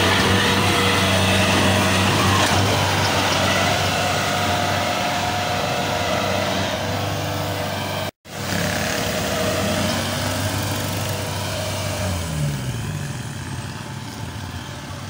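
Kubota tracked combine harvester's diesel engine running steadily and loud, with a brief dropout about eight seconds in. Later the engine pitch falls and the sound gradually fades as the machine moves away.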